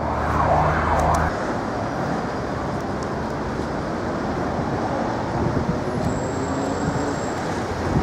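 Steady city street traffic noise, with the low hum of a nearby vehicle engine that drops away a little over a second in.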